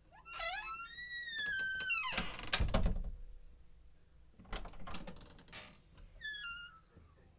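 Old door's hinges squeaking as it swings, a long wavering creak with a shrill ring. About two and a half seconds in there is a heavy thud, then a cluster of clicks and rattles around five seconds in, and a short squeak falling in pitch near the end.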